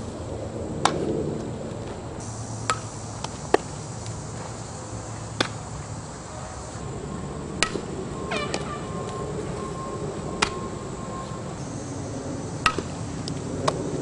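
Sharp knocks of a softball coming off a bat and smacking into leather gloves during an infield fielding drill, about eight of them spaced a few seconds apart. Behind them is open-air background with a faint high buzz.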